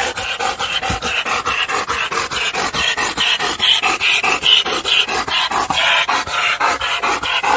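A black German Shepherd panting hard with its tongue out, in a fast, even rhythm of short breaths.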